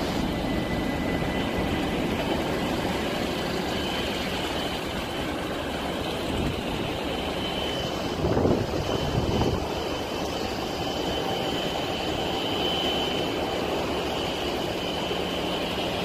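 Steady roar of strong wind driving a wildfire, with wind buffeting the microphone; a faint high whine runs through most of it, and the noise swells briefly about halfway through.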